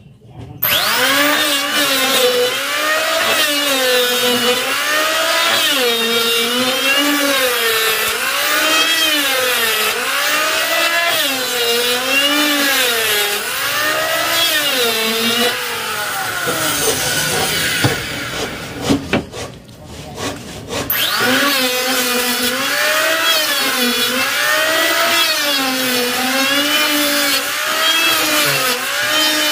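Electric hand planer running and cutting wood, its motor pitch dipping and recovering about once a second as the cutter is pushed along the board under load, over a hiss of shavings. It starts just under a second in, stops about two-thirds of the way through, and starts again a few seconds later.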